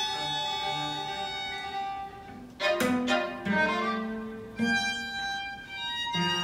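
String quartet of two violins, viola and cello playing live: a held high chord over a pulsing low note, then a sharp, forceful attack about two and a half seconds in, followed by several more accented strokes about a second apart.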